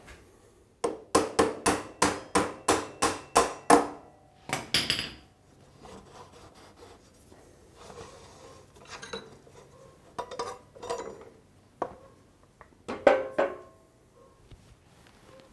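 A dozen quick hammer blows on metal, about four a second, each ringing, driving out a motorcycle's rear axle; then quieter scrapes and knocks as the axle is worked through, with a short louder clatter near the end.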